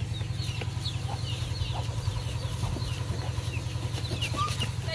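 Chicken calling with repeated short high calls that fall in pitch, over a steady low hum.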